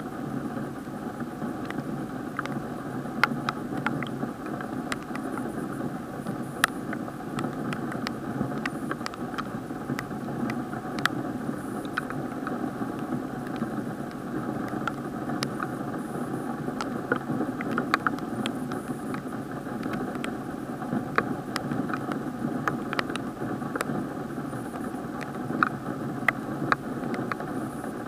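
Raindrops tapping irregularly on a plastic action-camera waterproof housing, sharp scattered ticks over a steady muffled hiss heard through the sealed case.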